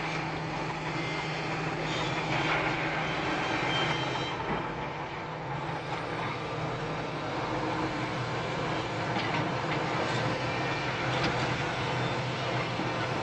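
Large SANY SY365H Pro crawler excavator's diesel engine running steadily under load as it digs and loads, with a wide mechanical noise over the engine tone.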